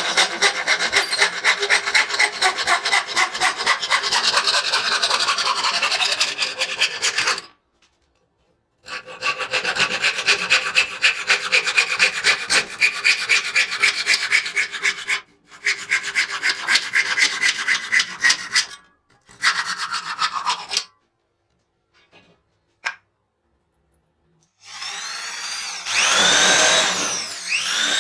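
A hand saw cutting through a wooden block with quick back-and-forth strokes, in several stretches broken by brief silences. Near the end an electric drill starts up and bores into wood, its pitch rising and falling.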